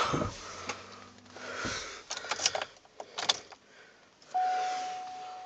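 A few clicks and knocks of handling inside a Cadillac Escalade's cabin, then about four seconds in the dashboard warning chime sounds: a single steady tone that starts suddenly and slowly fades. It sounds with the ignition on and the engine not yet started.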